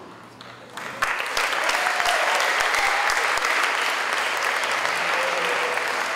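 An audience applauding. The clapping breaks out suddenly about a second in and then carries on steadily.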